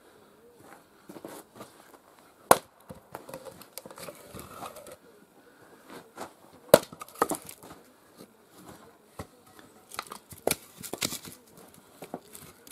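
Axe splitting a log on a chopping block: two sharp chops, about two and a half seconds in and again near seven seconds in, the second the loudest. Between and after them come smaller knocks and cracking as the split wood is worked apart and the pieces are handled.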